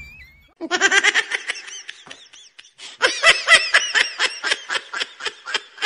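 Laughter in quick, rapid 'ha-ha' pulses, in two runs with a short break about two seconds in.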